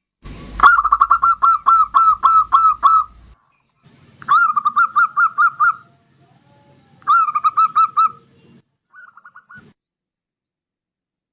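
Zebra dove (perkutut) cooing in phrases of quick, evenly spaced notes, four phrases with pauses between them; the first is the longest and the last is short and faint.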